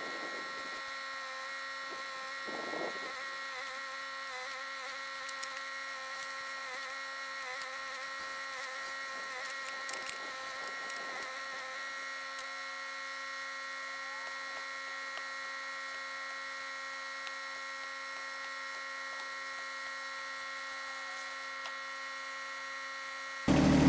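John Deere 1025R compact tractor with a 260B backhoe running at a steady speed, giving an even, fairly quiet hum and whine of fixed tones, with a few faint knocks and scrapes of the bucket in the dirt in the first half. Near the end the engine sound suddenly gets much louder.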